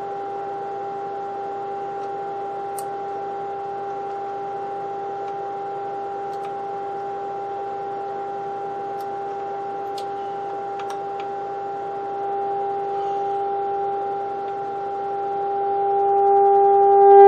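Steady audio test tone from a signal generator playing through the Philco 37-640 radio's speaker, with a few faint clicks. About twelve seconds in it gets a little louder, then it swells steeply near the end as the primary of the first IF transformer is peaked by ear: that coil was way off alignment.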